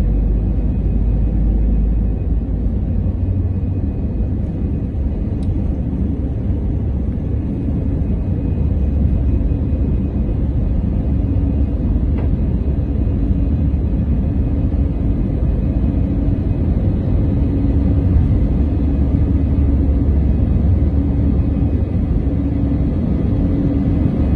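Airbus A320's jet engines at takeoff thrust, heard inside the cabin from a seat over the wing. The heavy rumble of the takeoff roll stops about two seconds in as the aircraft lifts off, giving way to steady engine noise through the climb.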